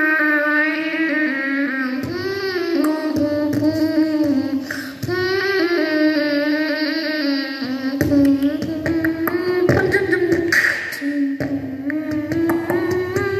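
A child singing solo and unaccompanied into a microphone, amplified through stage loudspeakers, in long held notes with short breaks between phrases.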